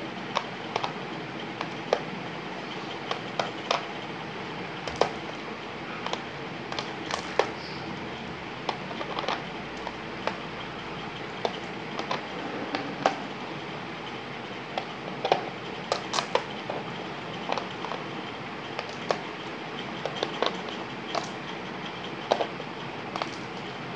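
Marbles clicking against each other and on a plastic brainvita (peg solitaire) board as they are jumped and lifted off: short, sharp clicks at irregular intervals, sometimes two or three in quick succession, over a steady background hiss.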